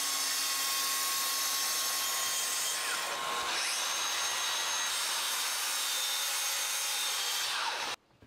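Bosch 18-volt cordless track saw cutting 18 mm MDF along its guide rail, a steady hissing run of the motor and blade, with the cordless vacuum drawing off the dust. The sound cuts off abruptly near the end.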